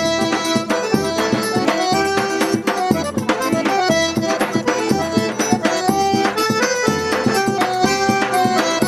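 Instrumental forró music: an accordion playing a melody over a steady, even drum beat.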